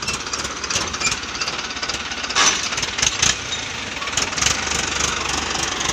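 Diesel tractor engine idling close by with a fast, hard clatter. Two or three sharper, louder knocks come a little past the middle.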